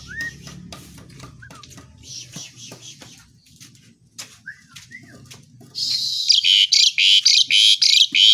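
Asian pied starling (jalak suren) calling: a few short rising whistles among soft clicks, then about six seconds in a loud, fast run of rapidly repeated harsh notes.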